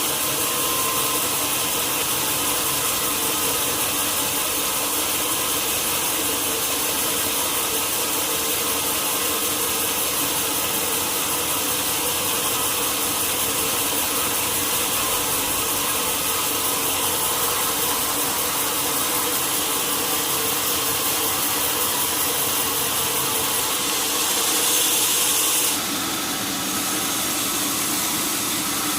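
Sawmill saw cutting lengthwise through a large log: a steady, even machine-and-wood cutting noise. About 24 seconds in it grows louder and hissier for a couple of seconds, then drops a little and changes character.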